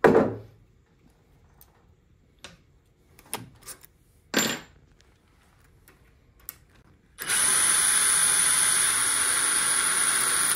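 DeWalt cordless drill/driver with a hex bit running steadily, with a high whine, for the last three seconds or so as it drives a bolt into the CNC gantry's carriage plate. Before that come a sharp knock at the very start and a few light clicks and knocks of tools and metal parts being handled.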